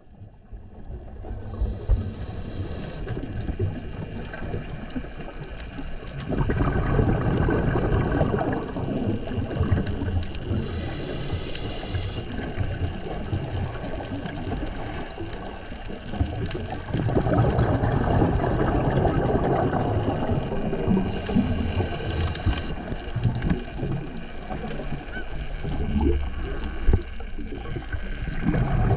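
Underwater sound of a scuba diver breathing through a regulator: a short hiss of each inhalation, then a longer rush of exhaled bubbles, repeating about every ten seconds.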